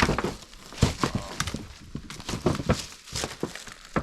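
Footsteps crunching and thudding over debris, a run of irregular knocks and crackles.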